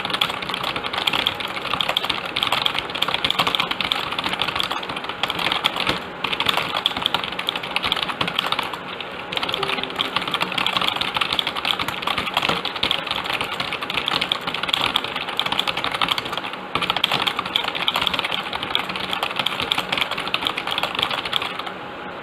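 Fast continuous typing on a computer keyboard, a dense stream of key clicks with a few brief pauses, stopping just before the end.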